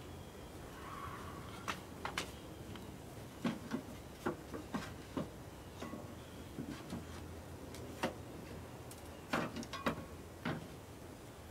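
Irregular light clicks and knocks, some sharper than others, as hands handle parts and cables at the base of a generator.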